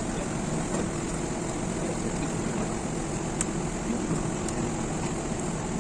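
Steady background hum and hiss, like an air conditioner or fan, with faint distant voices under it and two light clicks in the second half.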